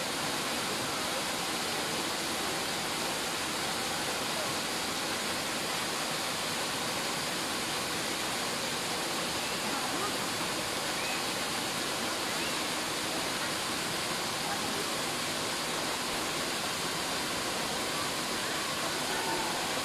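Small waterfall pouring down a rock face into a pool: a steady, unbroken rush of falling water.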